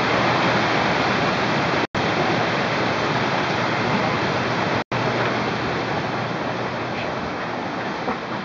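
Heavy hail coming down on the garage roof and the ground outside as a dense, steady wash of noise. The sound cuts out for an instant twice, about two and five seconds in.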